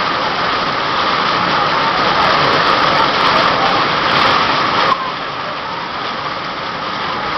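Heavy rain pouring down in a steady, dense hiss, which drops a little in level suddenly about five seconds in.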